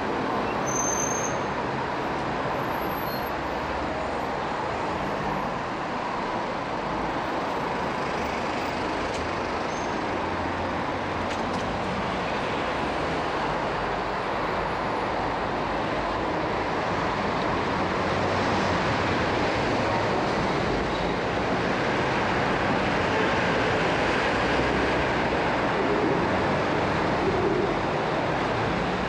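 Steady city traffic noise: motor vehicles running along a busy street, heard from a bicycle riding among them, a little louder in the second half.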